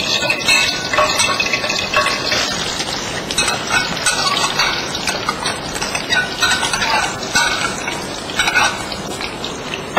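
A spatula stirring and scraping in a cooking pan, with repeated clinks of metal on metal.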